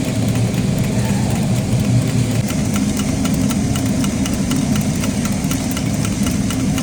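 Factory machinery running steadily with a low hum, joined about two and a half seconds in by a regular light ticking.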